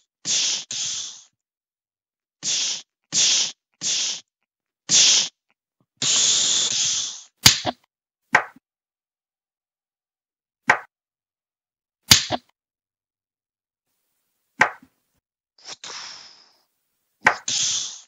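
Cheap homemade sound effects standing in for lightsaber swings and clashes. Short hissing bursts come about one a second for the first seven seconds, then sharp single slaps follow every one to three seconds, with another hiss near the end.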